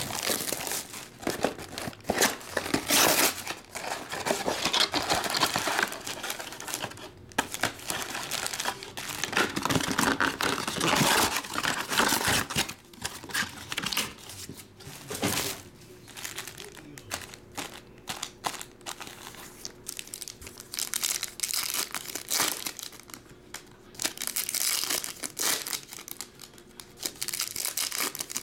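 Foil trading-card packs crinkling and rustling as they are handled and a pack is torn open; busiest in roughly the first half.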